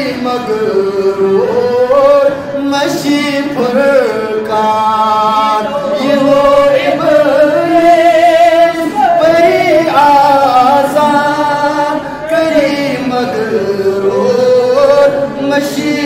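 A man's solo voice chanting a devotional recitation into a microphone, in long held notes that waver and glide between pitches, with short pauses for breath.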